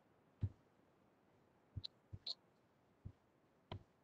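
Near silence broken by about six faint, short clicks at uneven intervals.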